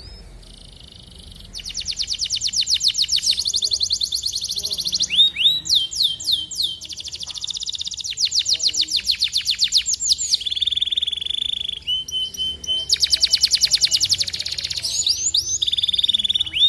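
Canary singing: a long song of fast repeated-note trills, sweeping whistles and steady buzzy rolls. The phrase changes every second or two, and the song gets louder about a second and a half in.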